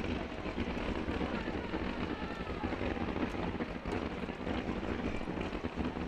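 Steady low rumble of wind buffeting the microphone outdoors, with no distinct firework bursts.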